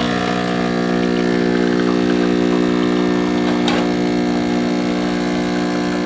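Mr. Coffee ECMP50 espresso machine's 15-bar pump running with a steady buzzing hum as it pushes water through the tamped coffee to pull a double shot of espresso.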